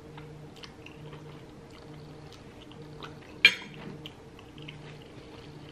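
Close-up chewing and wet mouth sounds of someone eating a mouthful of pasta, with small clicks throughout and one sharp clack about three and a half seconds in.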